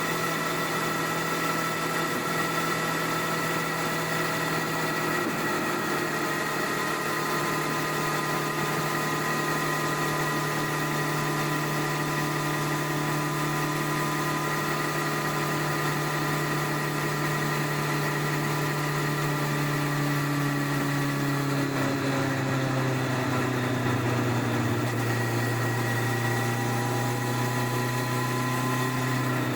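Stock 1999 Honda CBR1100XX Blackbird's inline-four engine running at steady revs under way, heard from under the rear seat, its note dropping gradually about two-thirds of the way through as the revs ease off.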